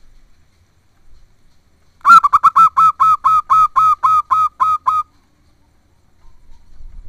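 Zebra dove (perkutut) calling: a fast run of about fourteen short, staccato cooing notes, four or five a second, starting about two seconds in and stopping after about three seconds.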